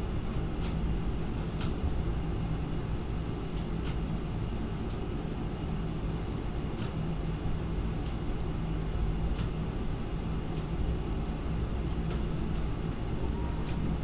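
Steady low rumble and hum of a ZPMC ship-to-shore gantry crane's machinery, heard from inside the operator's cab as the spreader lowers a hatch cover, with a few faint clicks.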